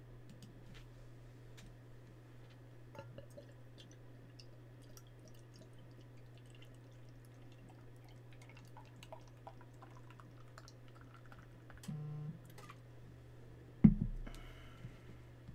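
Quiet room with a steady low electrical hum and scattered small clicks and ticks. A brief low tone sounds about twelve seconds in, and a single loud knock about two seconds later is the loudest thing.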